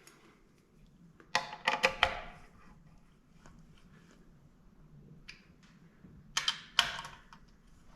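Two short runs of metallic clicking and clinking, about a second and a half in and again near the end, from a speed wrench run on the throttle body bolts, with a few faint ticks between.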